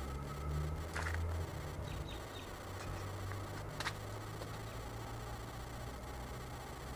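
Faint outdoor background noise: a steady low rumble with two short clicks, one about a second in and one near the four-second mark.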